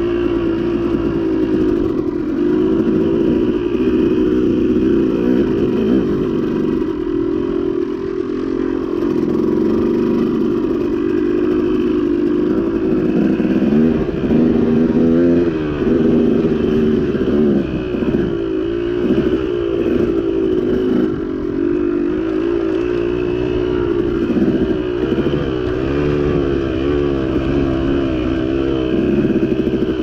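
KTM two-stroke dirt bike engine running under way on a trail, its pitch rising and falling as the throttle is rolled on and off, with more throttle changes in the second half.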